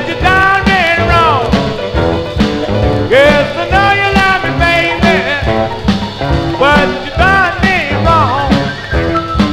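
1950s rhythm-and-blues rocker recording: a full band keeps a steady beat while the lead plays short repeated phrases of notes that bend up and fall back.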